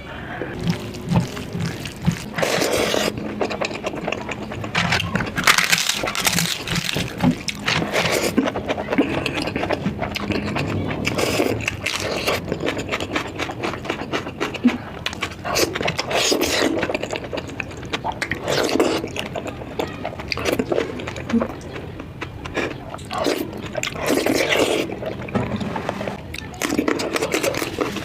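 Close-miked eating sounds: a person chewing and smacking through a mouthful of curry and rice, with irregular wet mouth noises following close on one another.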